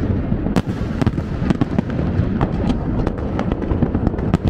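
Fireworks going off in quick succession: many sharp cracks and pops over a continuous low rumble of bursts.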